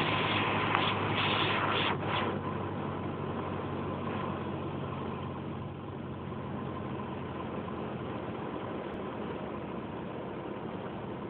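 Cessna 150's four-cylinder Continental O-200 engine and propeller droning, heard inside the small cockpit with air noise over the cabin. About two seconds in the sound drops and stays lower and steady, with the engine's low hum fading, as power comes back on final approach to land.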